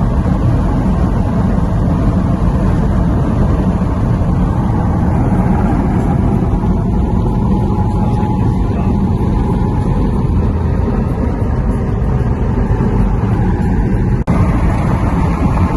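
Steady rumble of a car driving on the highway: road and wind noise with the engine underneath.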